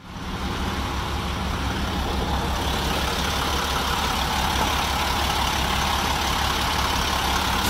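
Diesel truck engine running steadily at idle, heard close with the hood open: a fast, even low pulsing under a loud hiss.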